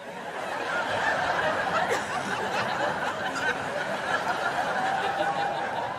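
Studio audience laughing, a crowd's laughter that swells up within the first second and carries on steadily.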